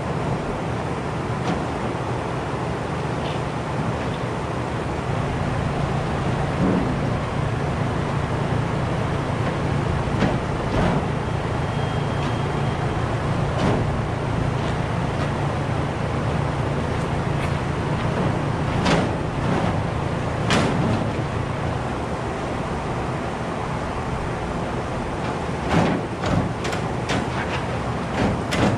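Steel chain links and slats of a new feed-wagon unloader chain clinking and clanking as the chain is fed and threaded onto the unloader, with a quick run of clanks near the end. A steady low machine hum runs underneath.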